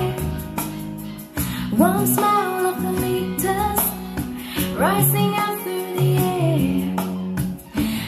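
A song with a woman singing over guitar and bass, played through a pair of small wooden bookshelf speakers driven by a Gold-Fi B1 amplifier board.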